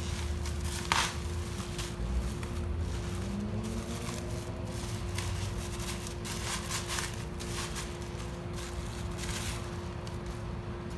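Bubble wrap rustling and crinkling as it is handled and pulled off a part, in many short crackly bursts, over a steady low hum.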